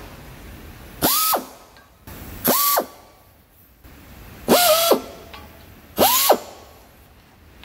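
Handheld air drill triggered in four short bursts about a second and a half apart, each a quick whine that rises, holds briefly and drops away, with a hiss of air, as the bit is worked inside a steel hydraulic cylinder barrel.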